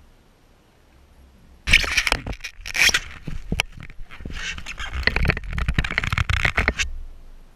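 Fabric rustling and scraping right against the camera's microphone, with many sharp clicks; it starts suddenly about two seconds in and stops shortly before the end.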